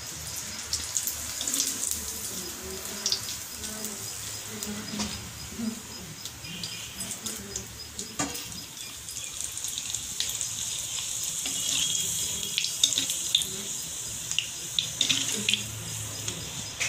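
Potato papad deep-frying in hot oil in an iron kadhai: a steady sizzle full of small crackling pops, with a metal spoon knocking against the pan about eight seconds in.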